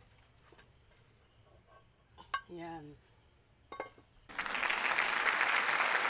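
A frying pan clanks as it is set back down on a wood-fire stove. About four seconds in, a loud, steady sizzling starts suddenly and keeps on, from hot oil in the pan.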